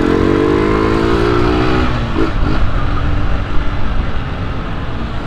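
Honda CG 125 Cargo's single-cylinder engine running under a ride with heavy wind noise; over the first two seconds its revs fall steadily as the bike slows, then it settles at a lower, steady run. The engine is running without its air intake hose, which gives it a louder intake growl.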